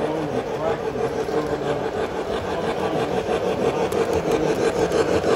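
Electric model trains running on the layout: a steady motor whir with the rattle of wheels on the track, growing louder toward the end as a train passes close.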